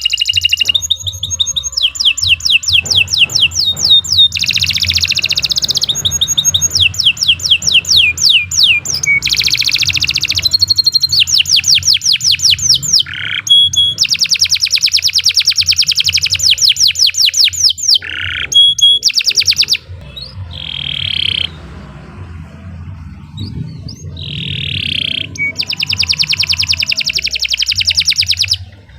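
Domestic canary singing a long, loud song of rapid trills and rolls, fast repeated notes strung into long series. There are a few short breaks about two-thirds of the way through.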